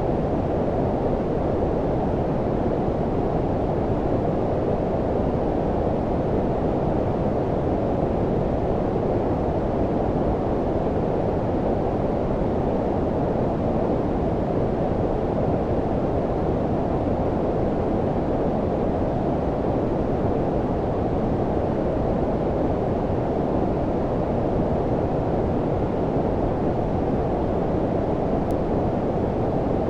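Steady, unbroken low-frequency white noise, filtered so that it sounds deep and muffled, like a soft rumbling hiss with almost no high end. It holds the same level throughout, with no changes or events.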